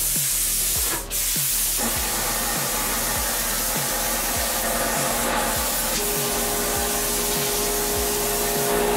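Handheld plasma cutter hissing steadily as its arc cuts through steel plate, with a brief dip about a second in.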